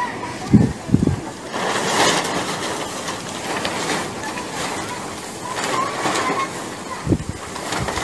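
Storm wind blowing hard in a steady roar that swells in gusts, with the wind buffeting the phone's microphone in low thumps about half a second and a second in and again near the end.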